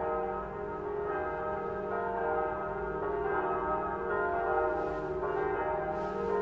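Full peal of the Elisabethkirche's church bells, all rung together for prayer: many bell tones overlapping in a continuous, layered ringing.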